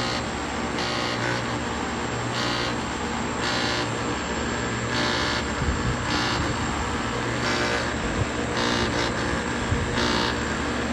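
Outdoor air-conditioner unit with its compressor running: a steady hum with a hissing rattle that comes and goes about every second or so. The strange noise may point to a bad electrical board.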